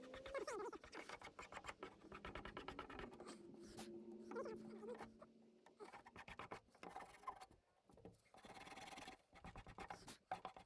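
Hand file scraping along the edges of a 2x4 wooden workbench in quick, repeated strokes, taking down rough edges and burrs.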